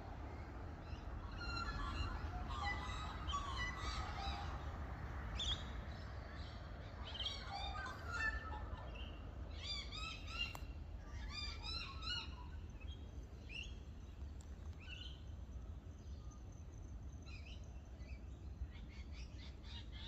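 Several birds chirping and calling in short, quick repeated phrases, thick through the first dozen seconds and thinning out after, over a low steady rumble.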